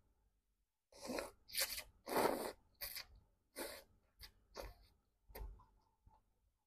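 A person slurping instant noodles in broth off chopsticks: a run of short sucking slurps, the longest and loudest about two seconds in, trailing into softer mouth sounds of chewing.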